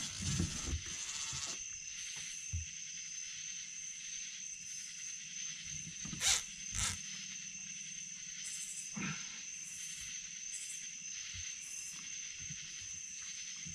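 Steady chorus of night insects, a constant high-pitched trill, with a few sharp clicks about six seconds in and again about nine seconds in.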